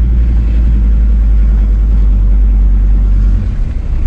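Car engine and road noise heard from inside a moving car: a steady low drone that eases off a little near the end.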